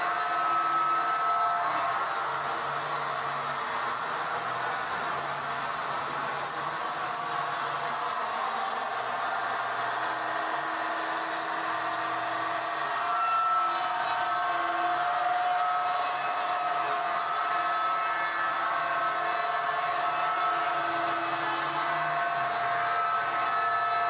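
Horizontal band sawmill running steadily, its blade cutting lengthwise through a large squared timber with a continuous whine.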